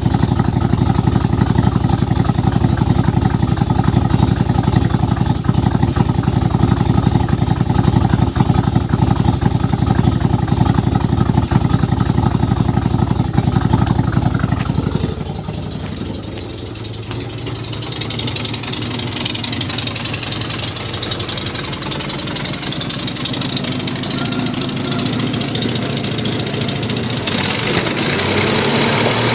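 Nissan Z31 300ZX's 3.0-litre V6 running with a loud noise from exhaust leaks: a broken head stud, a cracked exhaust manifold and a broken manifold-to-crossover stud. The timing belt is a tooth off, giving it a lumpy, cammed sound. About halfway through the sound drops and thins out, then grows louder and brighter again toward the end.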